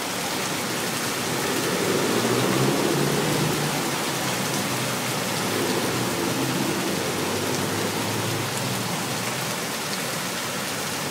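Heavy rain pouring steadily in a downpour, with a low rushing swell about two seconds in and again around the middle.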